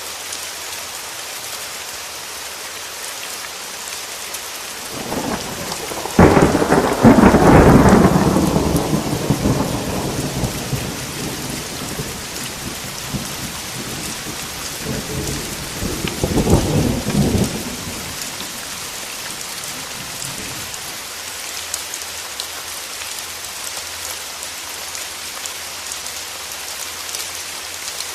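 Steady rain with a sudden thunderclap about six seconds in that rolls on as a rumble for several seconds. A second, weaker roll of thunder follows about fifteen seconds in.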